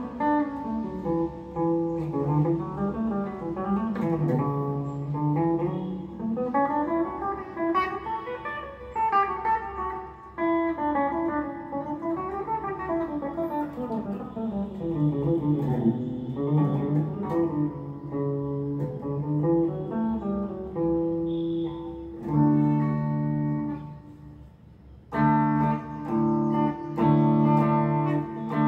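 Electric guitar playing a melody of single notes that run up and down the scale, then changing to ringing chords about three-quarters of the way in, with a short pause before the chords start again.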